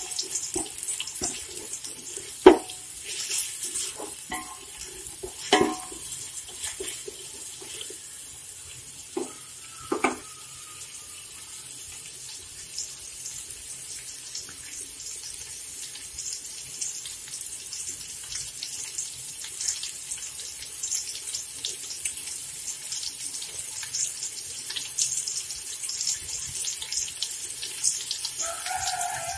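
Julienned carrots sizzling in hot oil and ghee in an aluminium pot, a steady hiss with small crackles. A spoon knocks and scrapes against the pot several times in the first ten seconds, the loudest knock about two seconds in.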